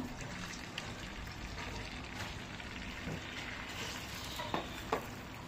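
Beaten egg and onion omelette mixture sizzling steadily on a hot oiled tawa griddle, with two light taps of a fork against the pan near the end.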